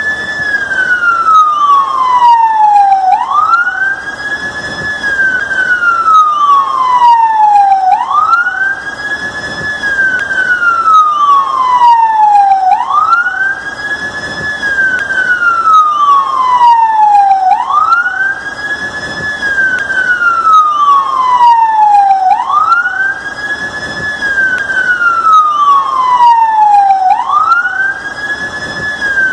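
AEM emergency vehicle siren sounding a slow wail, loud and continuous. Each cycle rises quickly, holds briefly at the top, then falls steadily over about three seconds, repeating roughly every five seconds.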